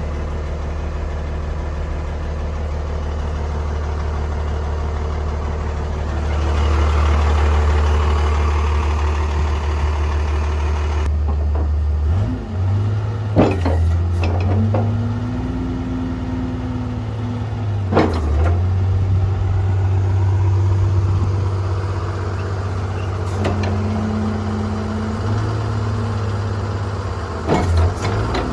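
Komatsu WA100-3 wheel loader's diesel engine running. It rises in level about six seconds in and then changes pitch several times as the machine is worked, with several sharp metallic clanks along the way.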